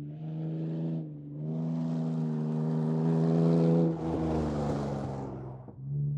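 2004 Ford Explorer engine running with a steady low hum. A louder rushing noise swells over it from about a second and a half in and falls away shortly before the end.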